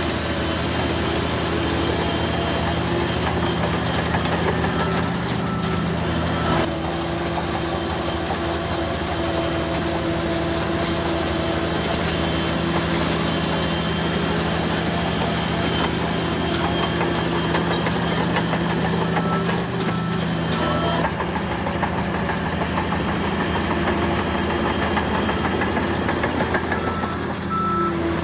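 Bulldozer's diesel engine running steadily, with short runs of high beeps a few times.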